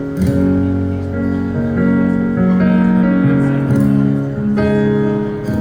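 Live band playing a slow instrumental lead-in: held chords that change every second or so, with no drums.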